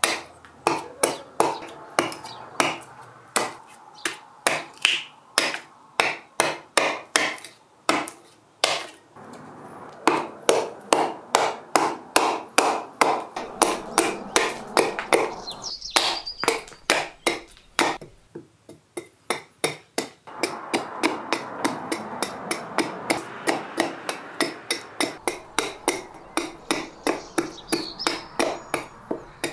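Hatchet chopping into a short upright log on a wooden chopping block, roughing out a wooden bowl blank: a fast, steady run of sharp woody knocks, about two to three a second, with a short lull about two-thirds through.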